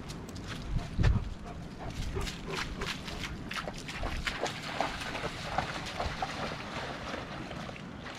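A German shepherd splashing as it runs and wades through shallow floodwater, a quick irregular run of splashes.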